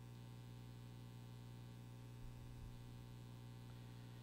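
Near silence: room tone with a steady low electrical hum, like mains hum picked up by the microphone.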